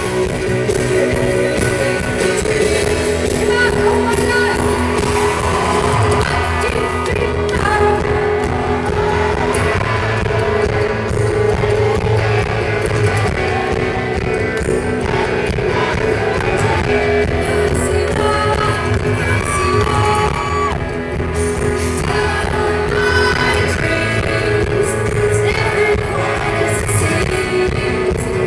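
Live rock band performing with a woman singing lead into a microphone over guitars and a steady bass, recorded from the audience.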